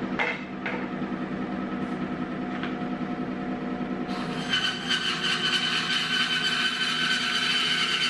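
JET 18-inch bandsaw (JWBS-18) running with a steady hum. About four seconds in, the blade starts cutting a 1-inch-thick board of red cedar, and a higher whine from the cut rises over the motor.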